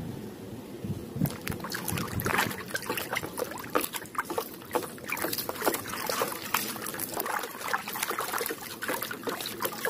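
A hand swishing and scrubbing a plastic toy shield in a plastic tub of muddy water, with many small, irregular splashes.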